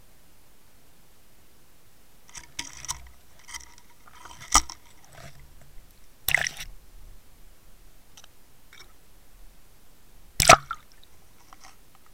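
Knocks and short watery splashes picked up by a Water Wolf underwater camera's own microphone as the camera housing is taken out of the river and put back in. There are scattered knocks from about two and a half seconds in, and the loudest knock-and-splash comes about ten and a half seconds in.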